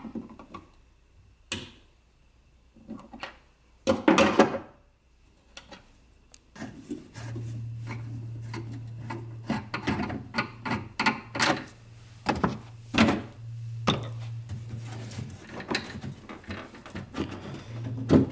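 A screwdriver prying plastic push pins out of a BMW E92 M3's black trunk sill trim: scattered clicks, knocks and scrapes of hard plastic, with a louder cluster about four seconds in. A low steady hum sets in about a third of the way through and carries on under the clicking.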